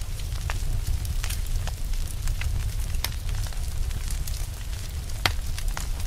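Fire crackling: irregular sharp pops and snaps over a steady low rumble, with one louder pop about five seconds in.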